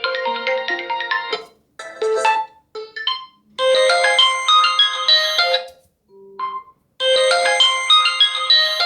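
Realme GT5 Pro ringtones, bright melodic tunes, playing one after another. One ends about 1.4 seconds in and two short snippets follow. Another plays for about two seconds from the middle, a brief one sounds just after it, and a new one starts near the end.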